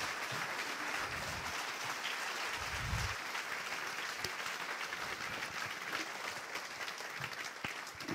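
Congregation applauding: many people clapping in a large hall, a steady, dense patter of claps.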